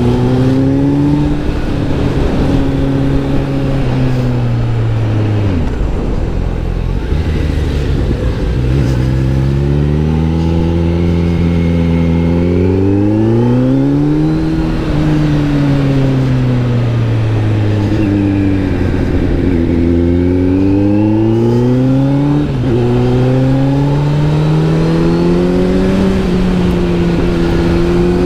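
Kawasaki Z900 SE inline-four engine through an SC Project S1 exhaust, under way: the revs rise and fall several times as it accelerates and eases off. The pitch drops low about six seconds in, then climbs again.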